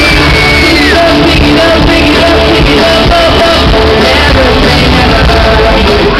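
Loud live pop music with a singer over the band, recorded close to the stage, with shouts from the audience mixed in.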